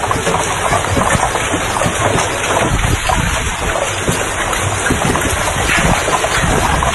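Large hailstones falling hard in a heavy hailstorm: a loud, steady, dense clatter of countless impacts.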